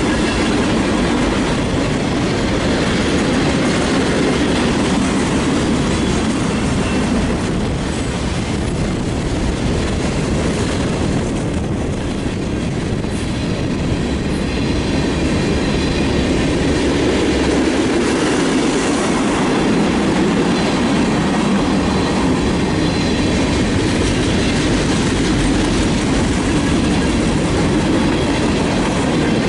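Cars of a mixed freight train rolling steadily past: the continuous rumble and clatter of steel wheels on the rail, dipping slightly about twelve seconds in.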